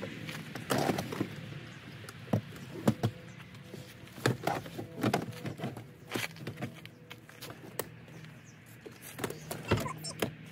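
Irregular knocks, clicks and rattles of a folded Wonderfold W4 Elite stroller wagon's frame and wheels being shifted and turned in an SUV's cargo area.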